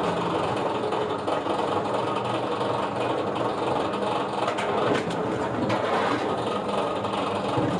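A wood-processing machine running steadily: a dense, even mechanical din with a low engine hum and a few faint clicks.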